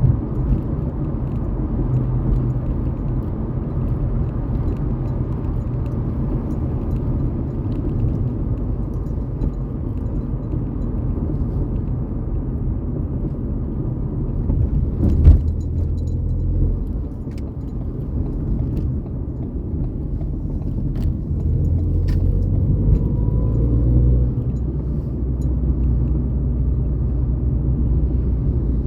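Ford Fiesta EcoBoost running, a steady low engine and road rumble with small clicks and rattles scattered through it. A single sharp knock stands out about halfway, and the rumble swells a little a few seconds later.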